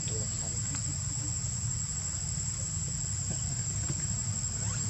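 Steady high-pitched insect chorus droning without a break, over a low rumble.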